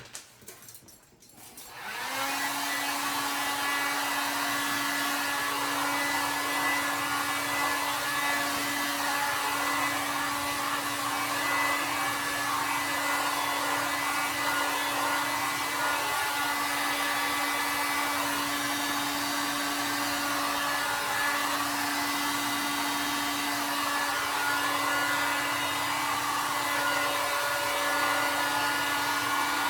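Handheld hot-air blower switched on about two seconds in and running steadily: a rush of air with a steady hum underneath.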